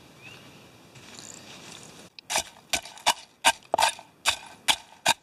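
Wooden fire-bow spindle pounding charcoal in a metal cup to crush it: a run of sharp strikes, about three a second, starting about two seconds in.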